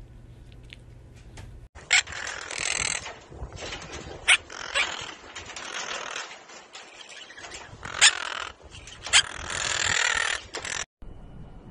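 Blue quaker parrot (monk parakeet) making harsh, raspy squawks in several bursts, the longest about two seconds in and near the end, with a few sharp clicks in between.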